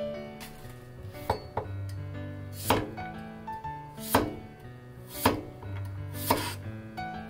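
Chinese cleaver slicing cucumbers into thick rounds on a bamboo cutting board: a sharp knock of the blade on the board about once a second, with background music.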